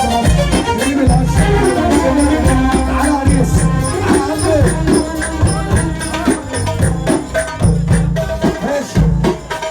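Loud Egyptian wedding dance music played over a sound system, with a heavy repeating bass beat and a wavering melody line.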